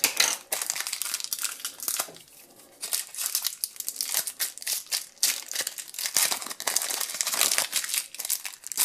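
Foil trading-card booster pack wrapper crinkling as it is handled and torn open by hand, a dense run of crackles with a brief lull about two seconds in.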